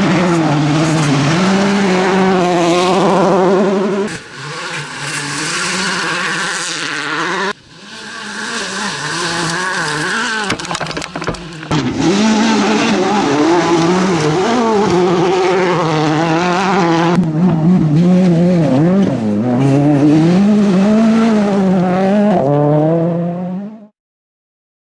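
World Rally Car turbocharged engines revving hard and shifting up and down through the gears on a shakedown stage, with a cluster of sharp cracks about ten to eleven seconds in. The sound changes abruptly several times between passages and cuts off suddenly about a second before the end.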